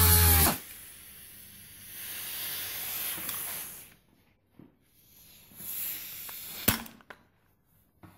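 Handheld electric rotary polisher running on a steel axe head, then switched off about half a second in. Faint hissing follows, then a single sharp click.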